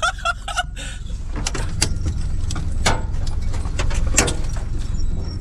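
Hino 4WD truck's diesel engine running steadily as the truck drives slowly along a bush track, with a few sharp knocks.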